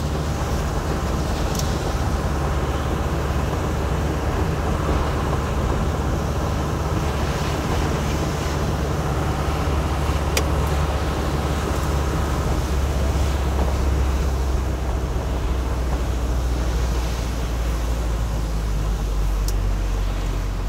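Vehicle engine running at a steady low drone while driving, with an even hiss of tyres on the rain-wet road. Three faint ticks are heard, several seconds apart.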